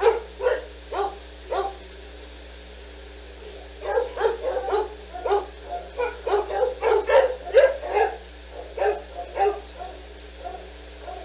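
Senior dogs barking in short, sharp barks. There are four spaced barks about two a second, a pause, then a rapid run of barks from about four seconds in that thins out near the end.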